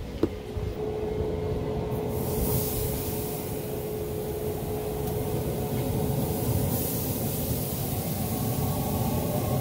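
Steady low rumble with a hiss that comes in about two seconds in, as teriyaki-marinated bluefin tuna pieces are laid on the grill grate and sizzle.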